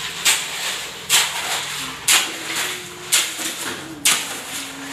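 Steel shovel blades scraping and digging into a pile of wet concrete mix on a concrete floor, a sharp scrape about once a second as the mix is turned by hand.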